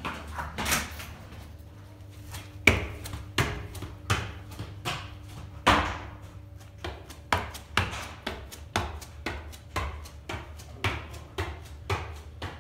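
Footfalls of running shoes landing on tiled stairs during stair-hop and stair-running drills. The impacts are uneven at first, with a few heavy landings, then quicken to a steady two or three steps a second in the second half.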